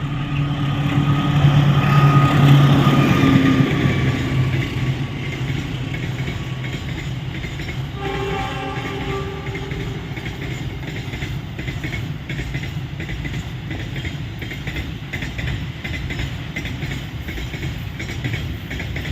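Long container freight train hauled by a CC 206 diesel locomotive passing at speed: a steady rumble and clatter of wheels on the rails, loudest in the first few seconds. A short steady tone sounds about eight seconds in.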